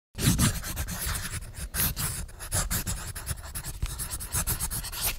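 Pen scratching across paper in quick, irregular strokes, writing a signature.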